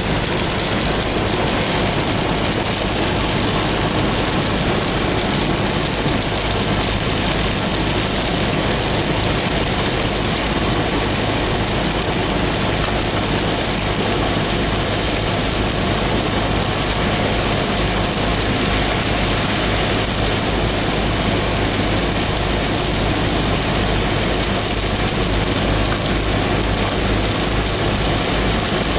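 Steady in-car noise while driving on a wet highway in rain: engine and tyres on the wet road, with rain hitting the windscreen. The level stays even, with a constant low rumble underneath.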